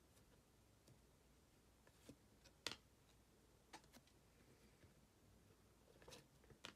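Quiet handling of a stack of Panini Threads basketball cards: a handful of brief clicks and flicks as cards are slid and shuffled from front to back, the sharpest about two and a half seconds in.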